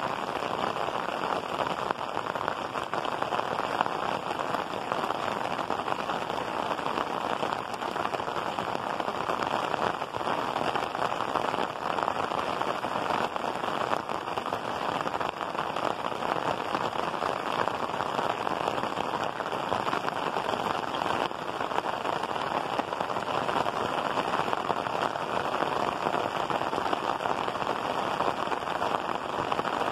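Heavy rain falling steadily on clay-tiled roofs, a dense, even hiss that holds without a break.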